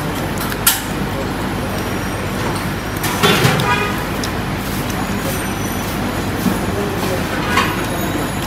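Steady noise of road traffic passing, with background voices and a short sharp click under a second in.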